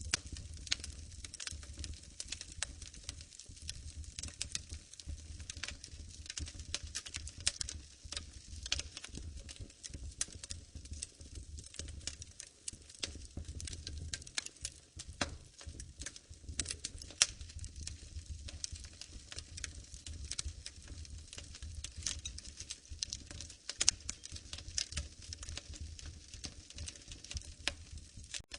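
Wood fire crackling in a fireplace: many irregular sharp pops and snaps over a low, steady rumble of flames.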